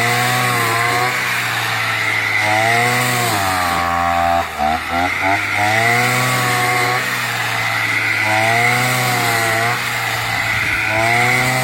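Brush cutter engine running at working speed while cutting rice stalks, its pitch repeatedly sagging and rising again as the blade takes and sheds load. About four and a half seconds in, the engine briefly drops off and stutters before picking back up.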